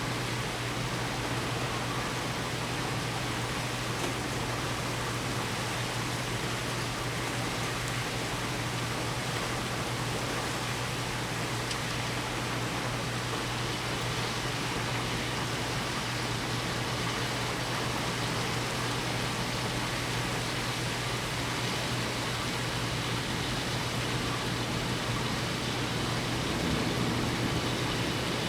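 Heavy thunderstorm rain pouring down, a steady even hiss, with a low steady hum underneath.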